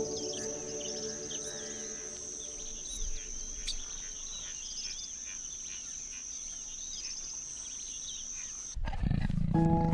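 Many small birds chirping over a steady high-pitched insect drone. Near the end it cuts abruptly to a louder low rumble, with piano music coming back in.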